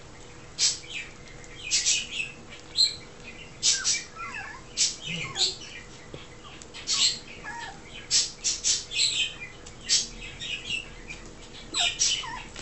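Whippet puppies nursing, making many short high squeaks and clicks at an irregular pace, with a few thin falling whimpers.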